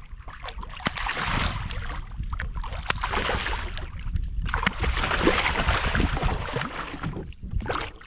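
Hooked redfish thrashing and splashing at the surface beside a kayak, the water noise coming in a few long surges.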